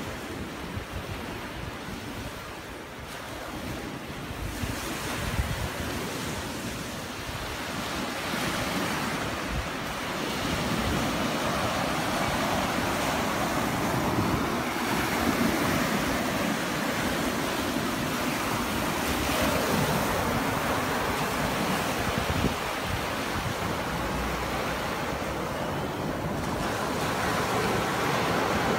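Sea surf breaking and washing up on a sandy beach, with wind buffeting the microphone. The surf grows louder about a third of the way in.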